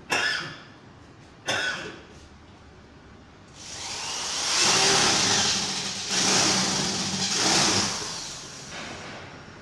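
Two short, sharp sounds near the start, then a motor running loudly in three surges lasting about five seconds in all, fading near the end.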